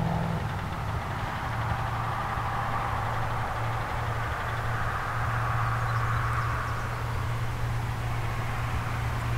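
Steady low hum of an idling engine over outdoor background noise.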